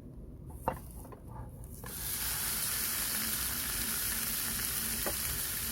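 Food sizzling in a hot pan: a steady frying hiss that starts about two seconds in, after a quieter stretch with a single sharp click.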